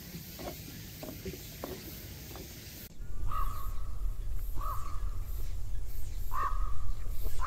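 A crow cawing four times, one to two seconds apart, starting about three seconds in, over a low rumble. Before the caws there is a steady high hiss.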